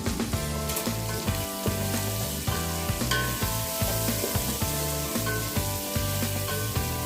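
Food sizzling as it fries in a hot pan while being stirred, over background music with a steady bass line.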